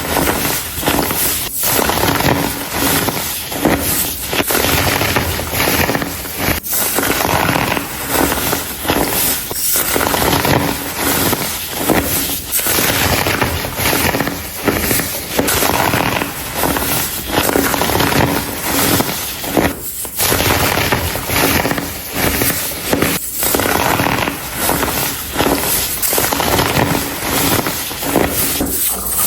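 Baking soda crumble being crushed and crumbled: a dense, continuous crackling crunch of many small snaps, with brief lulls about seven and twenty seconds in.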